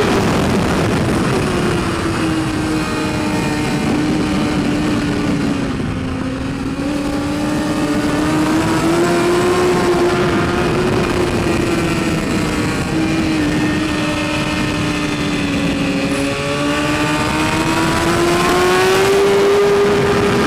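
2012 BMW S1000RR's inline-four engine running at high revs on track. Its pitch drops at the start, sags to its lowest about six seconds in, climbs again, eases off toward sixteen seconds and rises strongly near the end. Wind rush over the helmet-mounted microphone runs under the engine.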